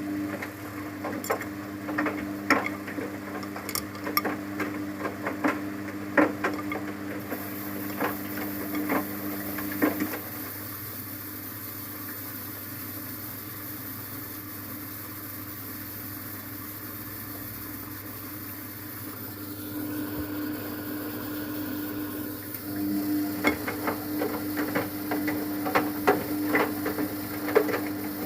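Luxor WM 1042 washing machine running its softener rinse: a steady motor hum with clicking and knocking as the drum turns, which stops for about ten seconds partway and then starts again.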